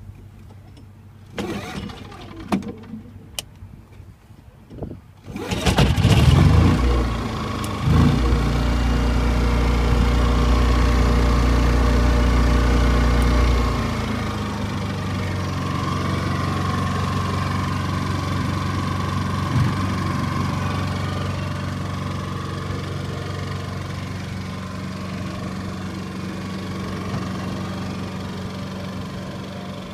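A Yamaha EF3000iS inverter generator's single-cylinder four-stroke engine starts about six seconds in, after a few clicks and knocks. It runs fast and loud for several seconds, then drops to a lower, steady speed about fourteen seconds in as economy mode throttles it back with no load.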